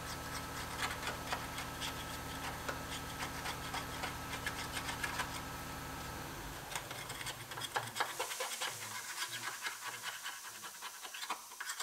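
Hand scraper picking and scraping cavity foam out of a car's sheet-metal A-pillar: irregular light scratches and clicks, over a steady low hum that stops a little past halfway.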